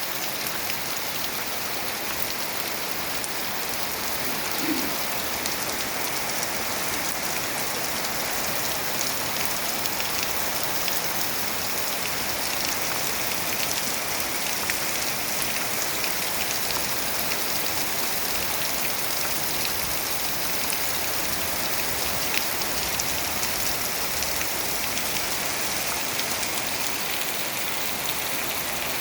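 Heavy rain pouring down steadily: a dense, even hiss of rainfall with countless drops pattering on surfaces.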